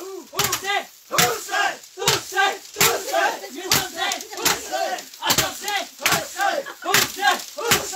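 Group of men threshing dried maize cobs by beating them with wooden sticks: sharp, irregular thwacks, roughly one to two a second, mixed with loud shouts from several men as they strike.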